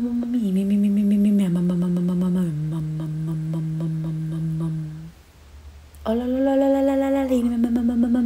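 A voice humming slow, held notes in a descending line, stepping down three times. It breaks off about five seconds in, then starts again on a higher note a second later and steps down once more.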